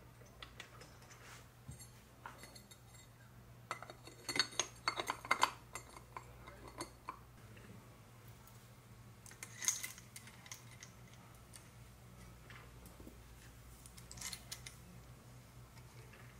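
Small metal parts and hand tools clinking and rattling as they are handled, with a quick cluster of clicks about four to five and a half seconds in and shorter bursts near ten and fourteen seconds.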